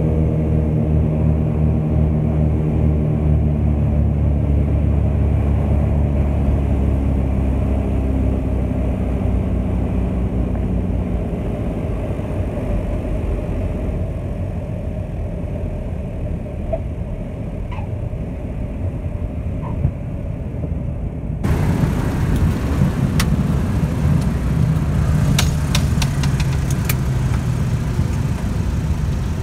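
Cockpit sound of a Britten-Norman BN-2 Islander's twin piston engines droning on final approach, their steady tone fading as power comes back. About two-thirds of the way through it gives way suddenly to a louder rushing with several sharp rattles as the plane settles onto the runway and rolls out.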